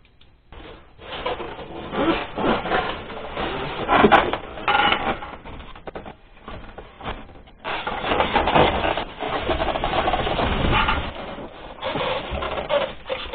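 Uneven rubbing and scraping of a Wolf CWL 300 ventilation unit's casing parts being handled and fitted back in place, with a short lull about six seconds in.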